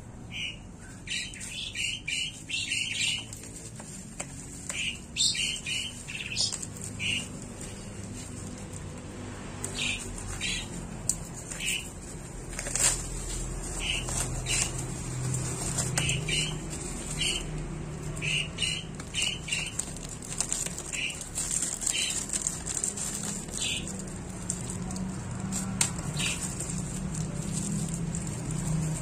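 Plastic packaging rustling and crinkling as a roll of Kapton tape is unwrapped by hand, with short bird chirps repeating throughout in the background.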